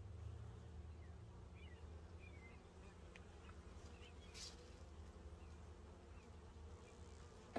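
Faint, steady buzzing of honeybees swarming over an open hive, with one brief soft click about four and a half seconds in.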